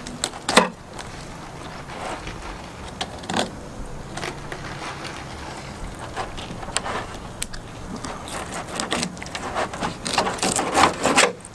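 Dexter-Russell fillet knife scraping and crunching through a sheepshead's scales and along its backbone on a plastic cutting table, in short sharp strokes. The strokes are spaced out at first and come in a quick cluster near the end.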